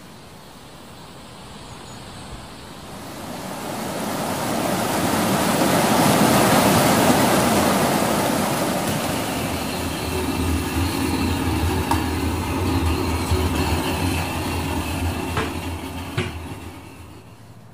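High-pressure washer spraying: a rushing hiss that swells to its loudest a few seconds in, then a steady motor hum under the spray that fades out near the end.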